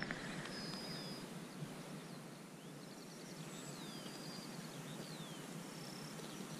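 Faint open-field ambience: a steady low hiss with birds calling now and then, short high whistles and several falling notes.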